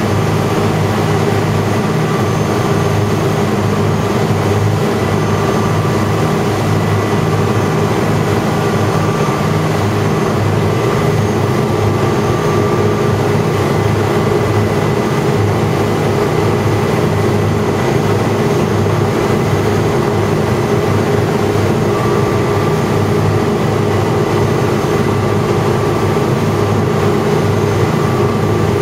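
Powerboat engine running steadily at a cruising speed of about 20 knots (24 mph), with the rush of the churning wake behind the stern.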